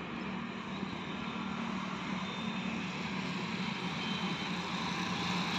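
Steady engine drone with a low hum, slowly growing louder.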